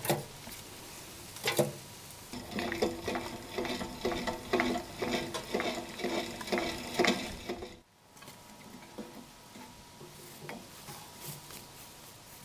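A utensil knocks twice, then stirs rapidly against metal kitchenware, clinking so that the metal rings with each stroke. This lasts about six seconds and cuts off abruptly, leaving faint background noise.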